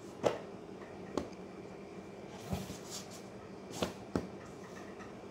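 Bound notebooks being handled in a cardboard box: a handful of short knocks and bumps, the loudest just after the start, over a faint steady hum.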